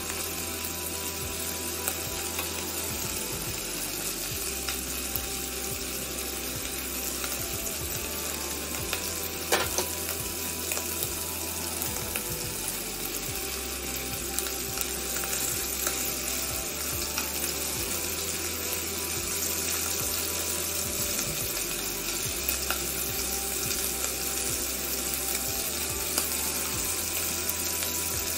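Beef cubes frying in oil and butter in a pot, a steady sizzle, with one sharp click about ten seconds in.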